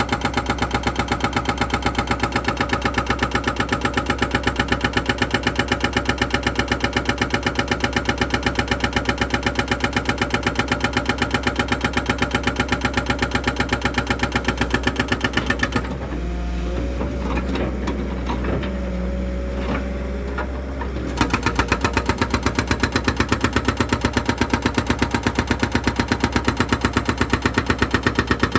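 An engine running steadily with a rapid, even pulse. It breaks off for about five seconds past the middle, giving way to a quieter sound, then resumes.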